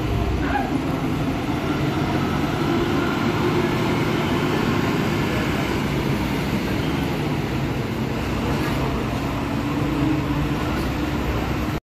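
Bus engines running, a steady mechanical drone with no sudden sounds.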